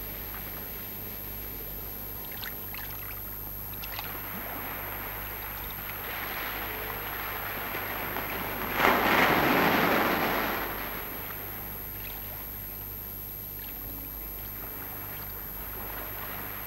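Small waves washing up on a sandy beach over a steady hiss of surf; one wave rushes in louder about nine seconds in, then fades.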